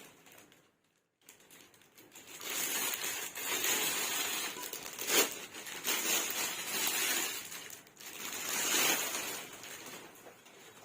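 Crinkling and rustling of packaging or kit parts being handled, in uneven swells, with one sharp click about five seconds in.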